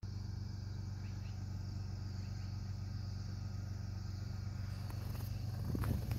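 A flock of bohemian waxwings giving continuous high, thin trilling calls over a steady low hum. A brief thump near the end.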